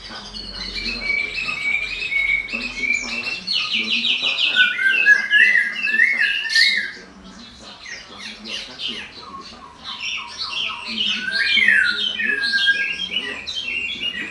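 A bird singing a long, varied song of quick whistled notes, rapid trills and sliding phrases. It falls quiet about seven seconds in and starts again a few seconds later.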